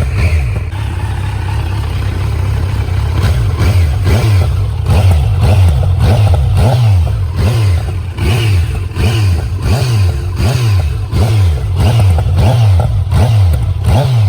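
Kawasaki Z900 inline-four engine running through its stock silencer while warming up, the throttle blipped again and again so the revs rise and fall roughly once a second.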